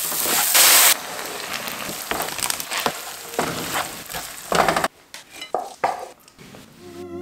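Diced shallots sizzling in a hot frying pan, loudest in the first second, followed by a wooden spoon stirring and scraping risotto around the pan. Near the end there are a few lighter knocks as the pan is tipped to serve.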